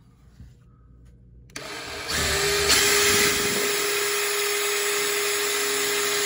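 Power drill running with a steady whine, boring a pilot hole into a hard old pine 2x4 stud; it starts about one and a half seconds in.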